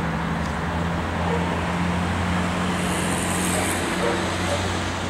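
A steady low engine hum, like a motor vehicle running nearby.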